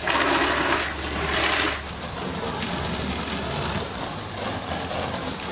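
Garden hose spray nozzle hissing, its jet of water splashing against the TV enclosure and the wall, a little louder for a moment about a second in.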